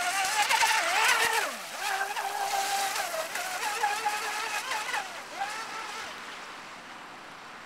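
Brushless electric RC speedboat running at speed across the water. Its motor whine rises and falls in pitch with the throttle over the hiss of spray, and fades after about six seconds.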